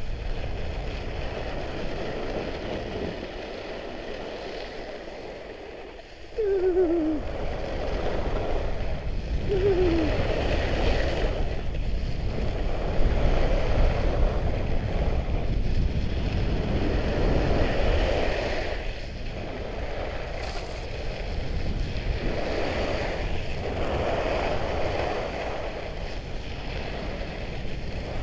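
Trikke Skki blades carving over hard, cold snow, with wind rushing on the microphone: a steady scraping hiss that swells and fades with each turn, about every two seconds. It gets louder about six seconds in as speed picks up, and two short falling squeaks come soon after.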